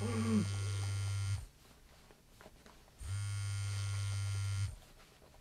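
Mobile phone vibrating in a jeans pocket: two long buzzes of about a second and a half each, with a pause between, like an incoming call. A man groans briefly at the start.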